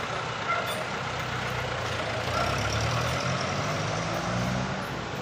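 A jeepney engine runs close by on the street over general traffic noise. Its hum rises in pitch about two seconds in as it pulls away.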